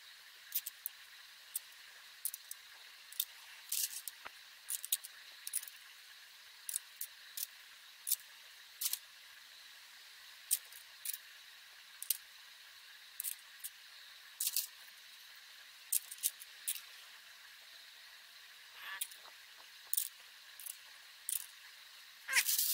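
Small steel bolts clicking and ticking as they are handled and threaded by hand into an aluminium transmission valve body, in irregular light taps one or two a second. A longer, louder noise comes right at the end.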